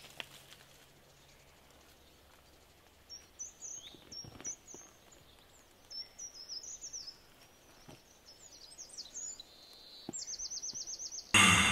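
Forest birds chirping with short, high, sweeping calls, then a quick run of repeated chirps. Right at the end a sudden loud sound cuts in.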